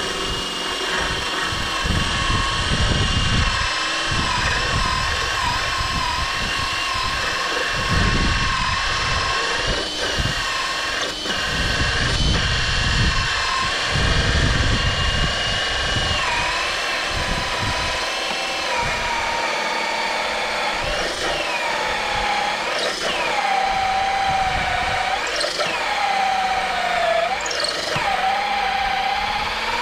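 Makita cordless drill driving a hole saw, which is a bit blunt, into the end of a hazel pole: a steady motor whine that, in the last third, dips in pitch about four times as the cutter bites and the motor is loaded down, then recovers.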